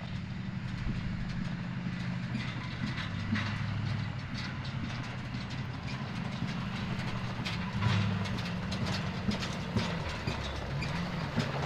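Bobcat 331 mini excavator's diesel engine running as the machine travels in on its tracks, with repeated clanking and rattling of the tracks and steel parts.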